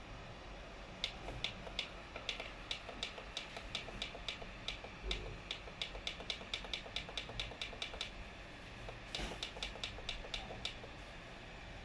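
Rapid light clicks, about four a second, running for several seconds, then a brief pause and a shorter run of clicks.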